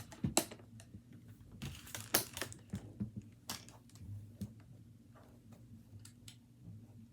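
Trading cards in hard plastic holders being handled and slid out of their slots: scattered light clicks and taps, irregular, with a few short scraping slides.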